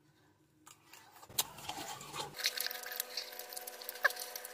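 Close-miked mukbang eating sounds: wet chewing and lip smacking. There is a sharp click about a second and a half in, and a faint steady hum comes in about halfway through.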